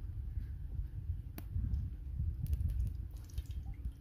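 Cooking oil poured from a plastic bottle onto a tawa, over a steady low rumble. There is a sharp click about a second and a half in and a few faint ticks later.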